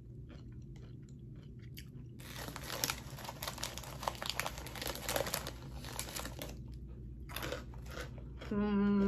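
A mouthful of crunchy corn snack mix (corn nuts, corn sticks, sesame chips) being chewed: quiet at first, then dense crunching for about five seconds. Near the end comes a short hummed "mmm" with her mouth closed.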